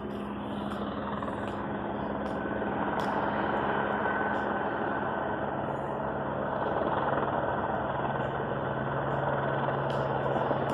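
Helicopter hovering overhead: a steady rotor and engine drone with a low hum. It grows a little louder over the first few seconds, then holds steady.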